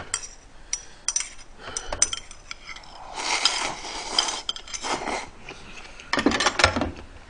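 A utensil clinking against a bowl of noodle soup, then a long slurp of broth drunk straight from the bowl about three seconds in, with more clinks near the end.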